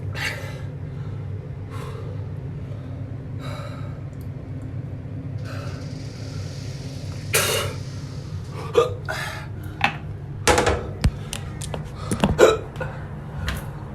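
A man hiccuping over and over, with sharp gasps and breaths, a reaction to the burn of superhot chili peppers he has just eaten. The hiccups come about every second and a half at first, then louder and more jerky in the second half, over a steady low hum.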